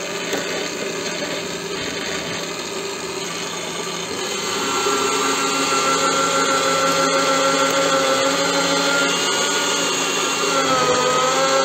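Electric drill in a drill stand running with a step drill bit cutting into 18 mm MDF, opening the hole out to the bit's 12 mm step. The sound gets louder about four and a half seconds in as the bit bites, and the motor's pitch dips and recovers near the end.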